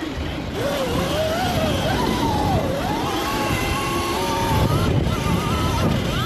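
Sur-Ron Light Bee electric dirt bike with an EBMX XLB-60 motor, ridden hard on a dirt track, heard from an onboard camera: a motor whine that rises and falls in pitch as the rider works the throttle, over wind rush and a low rumble.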